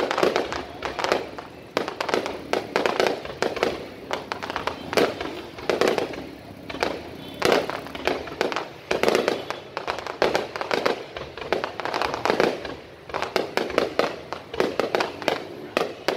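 Fireworks display: a dense, continuous barrage of bangs and crackles from bursting shells, swelling and easing every second or two.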